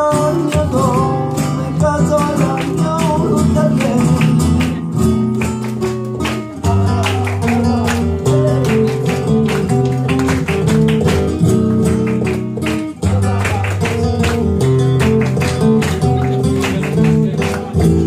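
Flamenco guitar playing tangos, a mix of strummed chords and picked runs. A man's voice sings a wavering, ornamented line over it in the first few seconds, then the guitar carries on alone.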